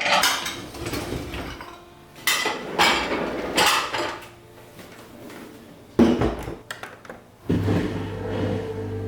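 Dishes and utensils clinking and clattering as they are handled, in a handful of separate knocks and scrapes. About seven and a half seconds in, a steady appliance hum starts.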